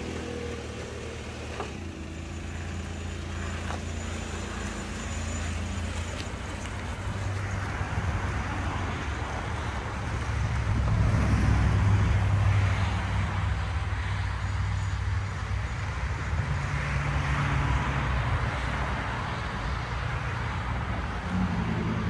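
2005 Nissan Maxima's 3.5-litre V6 running as the car is driven away across a parking lot, a low engine hum with tyre and road noise that swells about halfway through.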